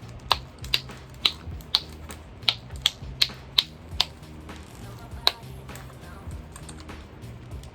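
Silicone pop-it fidget toy bubbles being pressed one after another, each giving a sharp pop, about two a second for the first five seconds or so, then stopping. Background music plays underneath.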